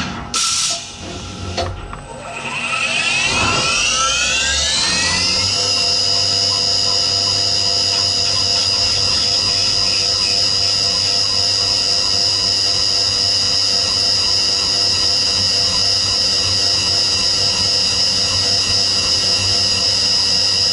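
CNC mill spindle spinning up after a few knocks near the start, its whine rising over about three seconds and then holding steady at 7000 rpm. A 3 mm drill bores the corners of a 6061 aluminium part under flood coolant.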